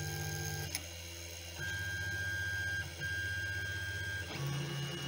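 Ender 3 3D printer running a job: its stepper motors whine steadily, the tones switching pitch abruptly several times as the axes move, with a single click a little under a second in.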